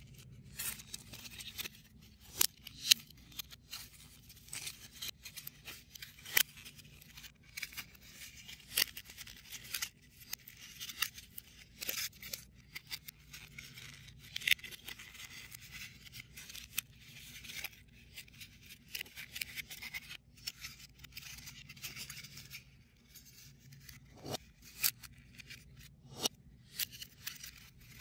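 Foam-board 3D puzzle pieces being handled and pushed together: irregular sharp clicks and rustling scrapes as tabs are slotted into place.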